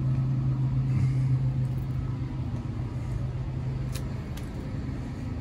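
Vehicle engine idling: a steady low hum with a constant pitch, fading somewhat after about three seconds.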